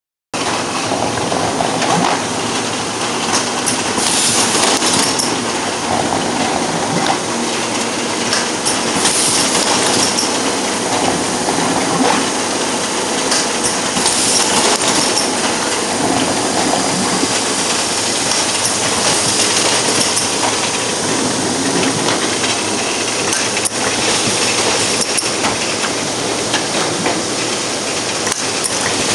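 Tunkers sheet laminating machine running: a continuous loud mechanical clatter of rollers and feed, with brighter, hissier bursts recurring about every five seconds.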